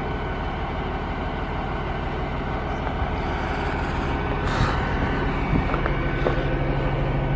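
A large vehicle's engine idling steadily, a low pulsing rumble, with a short hiss about four and a half seconds in.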